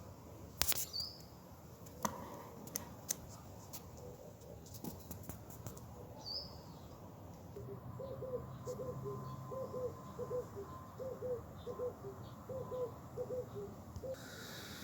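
Faint bird calls: a couple of short high chirps, then a run of short repeated notes about twice a second in the second half, with a few sharp clicks early on.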